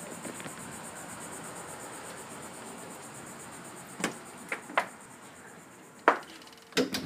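Steady room hiss with a faint high buzzing whine, then about six sharp, irregularly spaced taps in the last three seconds: hard footsteps on a tile floor.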